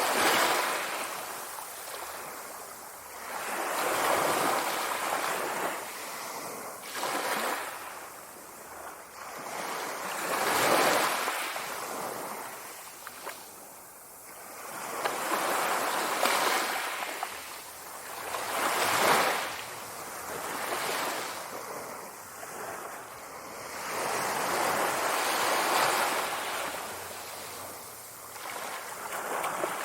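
Sea waves washing in, each swelling and fading away, one every three to four seconds.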